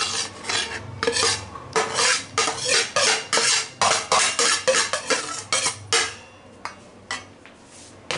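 A utensil scraping cooked rice off a plate onto a pan of layered biryani rice: a run of quick scraping strokes, two or three a second, that stop about six seconds in, followed by a few light taps.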